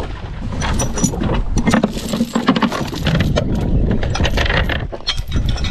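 Anchor chain rattling and clanking in irregular runs as it is paid out by hand over a small boat's bow while anchoring.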